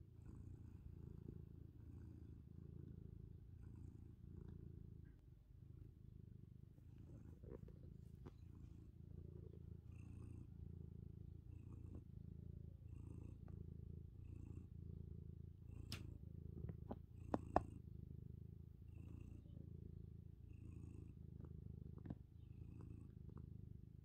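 Tuxedo cat purring steadily, the low purr swelling and fading with each breath. A few sharp clicks come about two-thirds of the way through.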